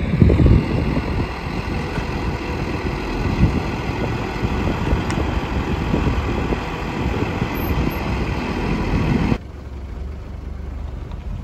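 Tilt-tray tow truck's diesel engine idling steadily. Near the end it cuts off suddenly to a quieter low rumble.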